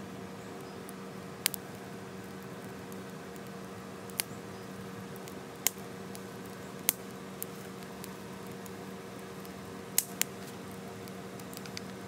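Wood fire burning in a tin-can hobo stove, with about half a dozen sharp crackles and pops over a steady hiss.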